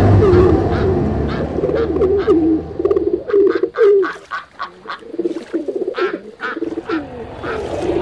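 Pigeons cooing over and over, many short calls overlapping, with a car engine fading away over the first three seconds.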